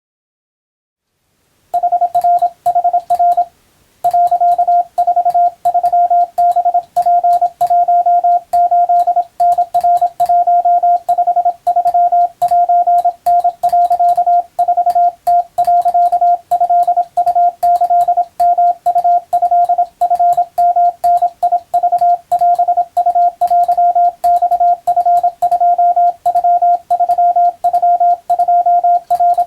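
Japanese wabun Morse code sent as a single steady beeping tone, keyed on and off in dots and dashes at a steady pace for receiving practice. It starts about two seconds in, with a brief pause a couple of seconds later, then runs on without a break.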